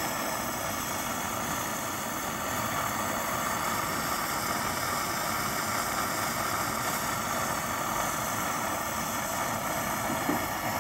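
Coleman 530 pressurized gasoline stove burning at full flame under a kettle: the burner gives a steady rushing hiss. Its generator is hot and the stove is running evenly.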